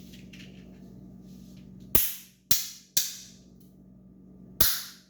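Hand Blasters trick noise makers, including a cracked one, smacked between the hands: four loud, sharp pops, three about half a second apart and a fourth after a short pause.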